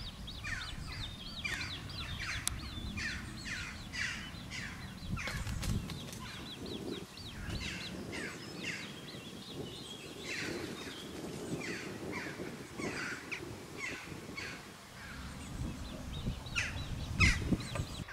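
Outdoor birdsong: birds, including crow-like caws, calling in a steady stream of short repeated notes. A low rumble runs underneath, and there is a louder sharp sound near the end.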